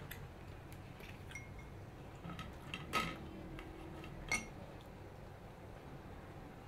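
Cutlery clinking against a plate a few times, with two sharper ringing clinks about three and four and a half seconds in.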